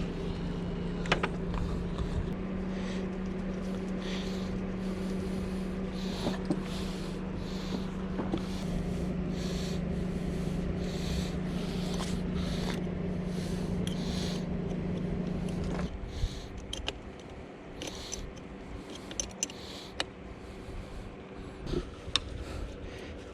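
A machine or engine running with a steady low hum that steps in pitch twice and drops in level about two-thirds of the way through, with scattered small clicks and scrapes from handled parts.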